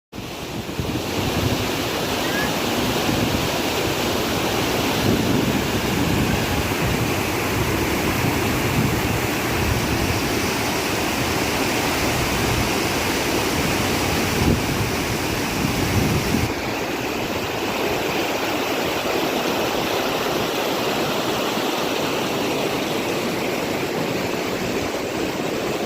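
Floodwater rushing steadily, a continuous roar of moving water. A heavier low rumble underneath drops away abruptly about sixteen seconds in.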